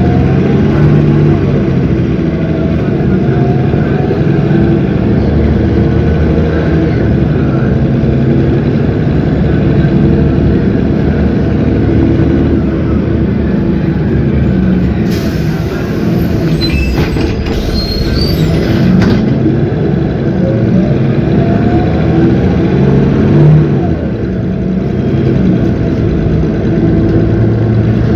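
Cummins ISB 6.7 inline-six turbodiesel of an Agrale MT17 city bus running steadily, its pitch rising and falling as the bus pulls away and eases off. About halfway through, a hiss lasts about four seconds.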